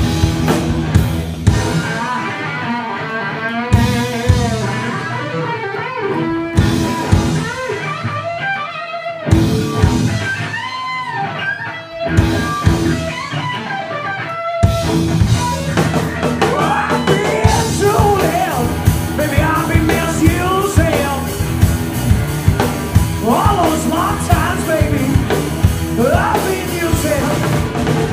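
Live rock band playing an instrumental passage, an electric guitar lead with bent notes over drum kit. A sparser stretch gives way to the full band with bass about fifteen seconds in.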